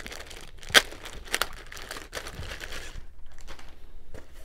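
Clear plastic poly bag crinkling and crackling as it is pulled open by hand, with a sharp crackle about three quarters of a second in, then softer rustling toward the end.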